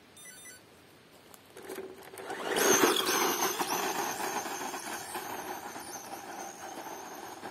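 Brushless electric RC stadium truck (Thunder Tiger Phoenix XT) accelerating hard from a standstill on loose dirt, its tyres spinning and its motor whining. The sound swells about two seconds in, is loudest just after, then slowly fades as the truck speeds away.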